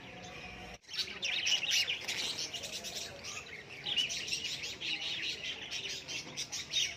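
A flock of budgerigars chattering: many quick high chirps and warbles overlapping without pause. They start abruptly a little under a second in, after a faint stretch.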